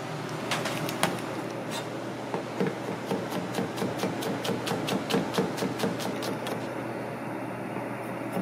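Misono chef's knife slicing garlic cloves on a cutting board: a quick run of knocks as the blade meets the board, about three or four a second, over a steady background hum.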